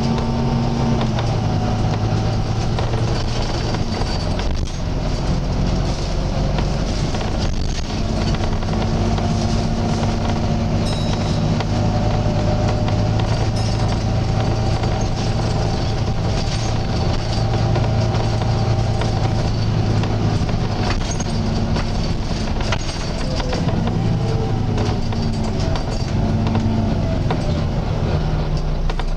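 Volvo B9TL double-decker bus heard from on board while under way: its six-cylinder diesel engine and driveline give a steady drone with a slight groaning whine, the pitch dipping and rising again near the end.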